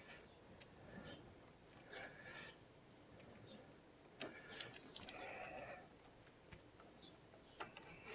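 Near silence with a few faint metallic clicks and taps from small hand tools and lock hardware being handled, with the sharpest clicks about four, five and seven and a half seconds in.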